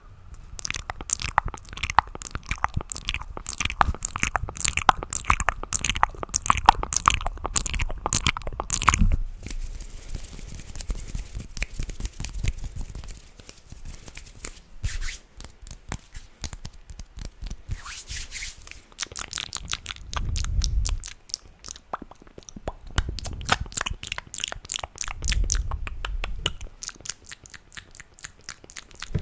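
Close-miked ASMR mouth sounds: rapid wet clicks and smacks. A dense run of clicking fills the first third, then eases off, and clicking picks up again later with a few low thuds.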